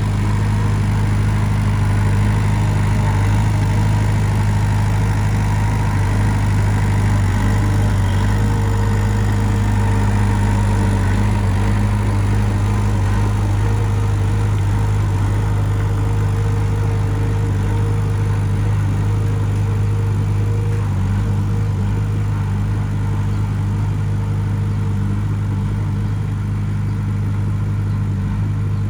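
Diesel engine of a heavy machine, a bulldozer or tractor, running steadily at an even speed with a deep, constant drone.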